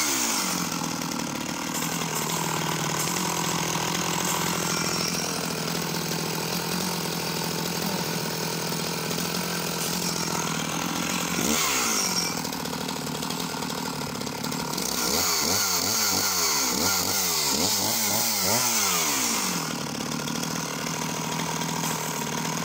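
Sachs Dolmar 111 52cc two-stroke chainsaw engine idling, a rock steady idle, with a quick rev about halfway through and a run of several short throttle blips a little later.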